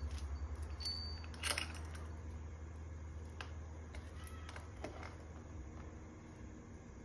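Steel chain and quick-links on a parrot play stand clinking in a few sharp, separate clicks as a green-winged macaw handles them with its beak. The loudest click comes about a second and a half in, over a steady low hum.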